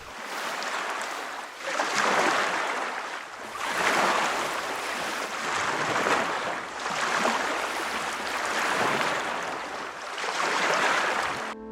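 Ocean surf breaking and washing, swelling and easing about every two seconds in a steady rushing hiss.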